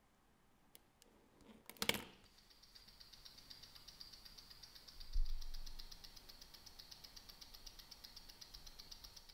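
A loud clack as the Cartier Roadster is clamped into a timegrapher's microphone stand, then the fast, even ticking of its ETA 2892A2 automatic movement, picked up by the timegrapher, at about eight ticks a second, with a dull knock about five seconds in. The movement is running at −6 s/d with a 249° amplitude, which the watchmaker judges bad enough that it needs cleaning.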